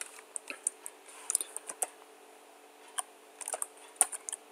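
Keystrokes on a computer keyboard: scattered sharp clicks, a few quick ones at a time with short pauses between.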